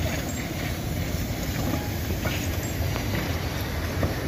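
Baldwin 2-8-0 narrow-gauge steam locomotive moving slowly: a steady low rumble with a few faint knocks.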